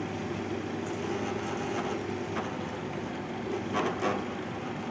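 Twin-gear masticating juicer running steadily as it crushes vegetables, with a couple of brief crackles about four seconds in.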